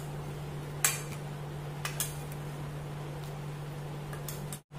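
A metal ladle clinking against a pot and serving bowl a few times while cooked curry is served, the loudest clink about a second in, over a steady low hum.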